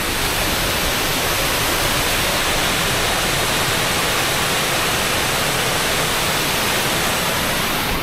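A roadside waterfall rushing steadily: a dense, even wash of falling water.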